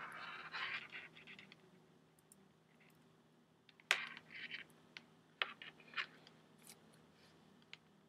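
Faint rustling and scraping of wires and alligator clips being handled and connected by hand, with a sharp click about four seconds in and a few lighter clicks after it.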